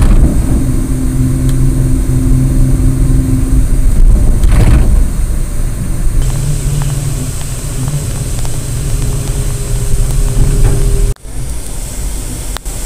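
Bus engine and road noise at highway speed, heard from inside the moving bus, with steady hum and a brief louder rush about four and a half seconds in. The sound cuts off suddenly near the end and resumes quieter.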